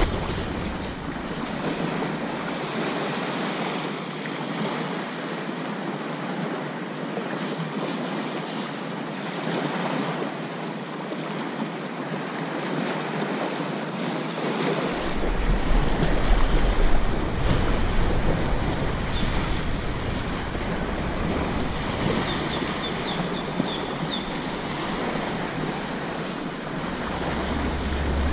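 Small waves washing up and lapping on a sandy beach, a steady surf noise. Wind rumbles on the microphone about halfway through and again near the end.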